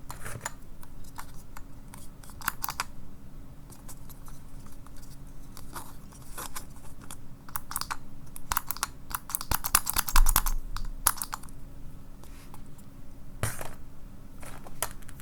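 Small hard plastic parts clicking and rattling in irregular bursts as a capsule toy is handled and its gimmick worked.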